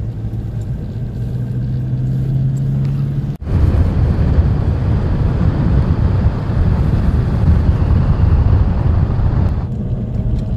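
A 4WD vehicle's engine running with a steady low note. After a sudden break about three seconds in, it gives way to a louder, rough rumble of the vehicle on the move, which eases slightly near the end.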